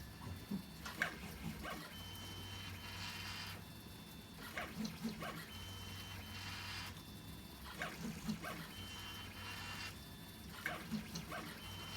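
K2800 3D printer's stepper motors running through repeated print passes. Each pass is a steady whine of about a second and a half, followed by a short flurry of clicks, and the cycle repeats every two seconds or so.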